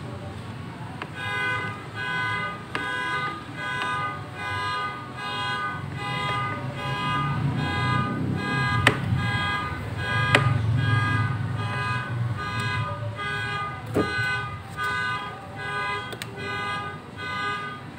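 A repeating electronic tone, several pitches sounding together, pulsing a little faster than once a second, with a few sharp clicks near the middle.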